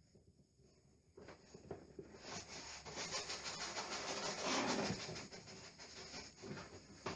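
Lining paper rustling and rubbing as it is handled and smoothed onto the wall, with many quick crackles, loudest around the middle.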